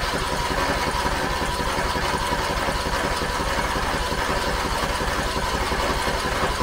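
Electric starter cranking a Briggs & Stratton 20HP Intek Plus engine on choke in a fast, even rhythm, without catching. The carburetor is probably still dry and waiting for fuel to reach it.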